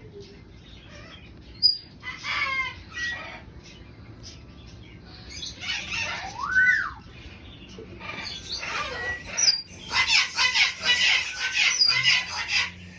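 Parrots squawking and screeching in a series of harsh calls. A clear whistle rises and falls about six and a half seconds in, and the calling is densest and loudest near the end.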